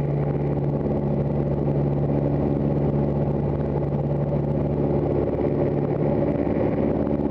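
RV-6's piston aero engine and propeller running steadily, heard from inside the cockpit as an even drone; its lowest tone weakens about five seconds in.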